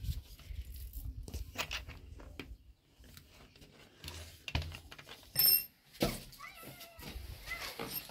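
A chrome wall-mounted mixer tap being handled and offered up to plastic water-pipe fittings: scattered light clicks and knocks of metal and plastic, with a brief high ringing tone about five and a half seconds in.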